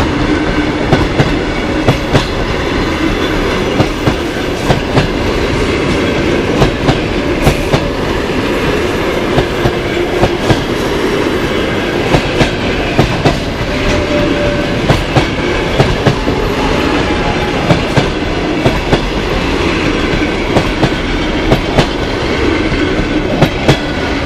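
Passenger coaches of a long train rolling past close by, with a steady rumble and the wheels clicking over rail joints in regular quick pairs of knocks.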